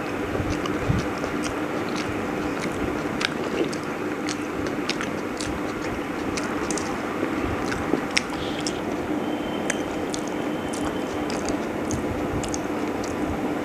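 Close-up chewing and wet mouth clicks of someone eating chicken biryani, irregular and scattered, over a steady background hum.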